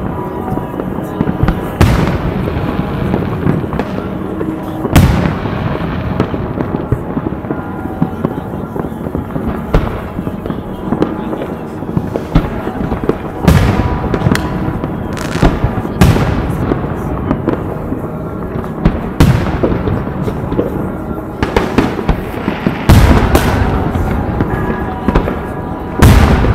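New Year's fireworks going off: sharp bangs from rockets and firecrackers keep coming over a constant background of crackling and distant explosions. The loudest bangs come about 2, 5, 13, 16, 19, 23 and 26 seconds in.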